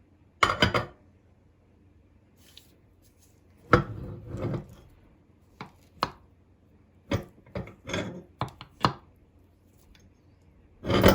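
Meat grinder working through a frozen ice-cream finger: irregular crunches and knocks, a dozen or so short bursts with quiet gaps between them.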